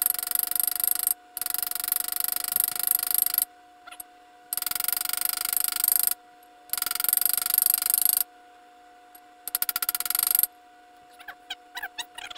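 Small hammer tapping quickly and lightly on a socket used as a driver, seating a needle bearing into a Wheel Horse 8-speed transaxle case. The taps come in five quick runs with short pauses between them, and a few scattered light clicks of parts being handled follow near the end.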